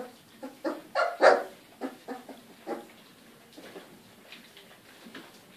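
Three-and-a-half-week-old Goldador puppies giving a quick string of short barks, about nine in the first three seconds, the loudest a little over a second in, then fainter, scattered sounds.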